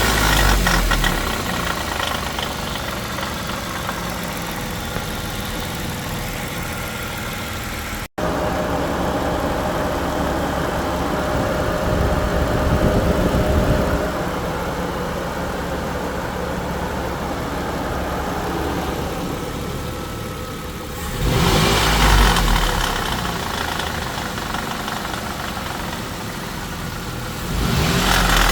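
Dodge Intrepid's 2.7-litre V6 running at idle, with two short revs: one about 21 seconds in and one near the end.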